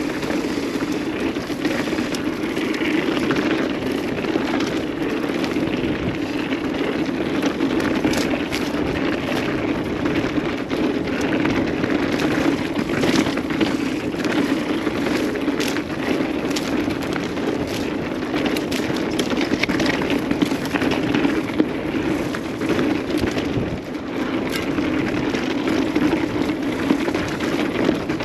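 A mountain bike riding down a dirt trail: a steady rolling rush of knobby tyres on dirt and gravel, with frequent clicks and rattles from the bike over bumps.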